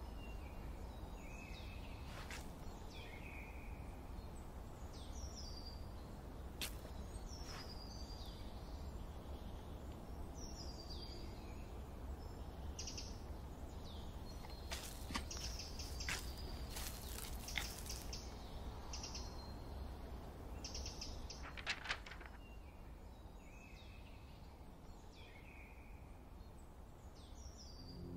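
Quiet forest ambience: birds chirping in short falling calls every couple of seconds over a low steady rumble. A few sharp clicks are scattered through it, with a cluster of crackles about halfway through.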